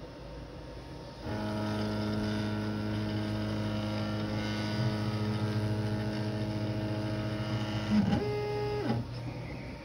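X-Carve CNC router's Z-axis stepper motor whining steadily as it lowers the V-bit onto a touch-plate probe, which zeroes the bit's height. Just after a click about eight seconds in, it whines at a higher pitch for under a second as the bit backs off the plate, then stops.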